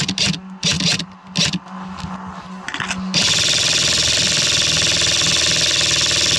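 Airsoft rifle firing a continuous full-auto burst of about four seconds, a fast even rattle that starts about three seconds in and stops abruptly; before it, brush rustling and clicking.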